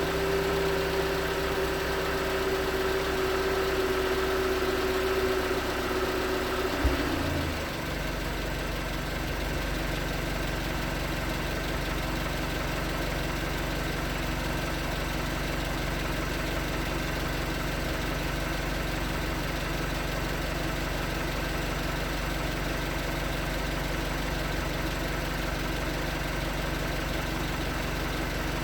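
2019 Hyundai Tucson's 2.0L Nu GDI four-cylinder engine idling with the cold-engine knocking that the owner takes for piston slap. A steady whine runs over it for about the first seven seconds, then stops suddenly with a click.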